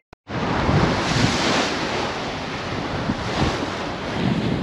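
Wind buffeting the microphone over the rush of sea waves around a sailing yacht under way at sea, swelling about a second in and again near the end.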